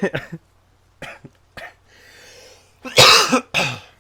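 A man with a head cold laughing in short bursts, drawing a breath, then coughing twice, loud and harsh, about three seconds in: the laugh sets off his cough.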